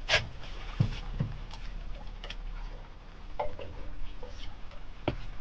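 Irregular clicks and knocks with a couple of dull thumps as a large channel catfish is landed and handled in a boat.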